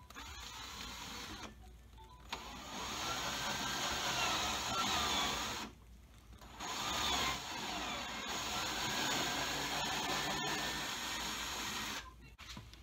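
Ridgid 18V cordless drill with a step bit boring a 3/8-inch hole through a soft plastic firewall panel. It runs in three goes, a short one and then two longer ones, its motor pitch rising and falling with the trigger and the load.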